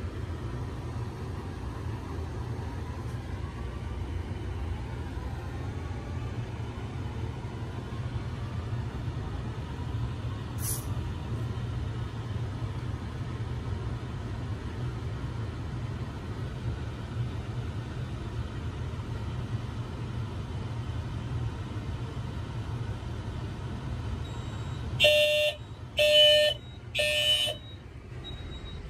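Steady low hum, then about 25 seconds in a fire alarm system starts its evacuation signal: three loud beeps of a single tone in quick succession, the temporal-three pattern that comes before a voice evacuation message.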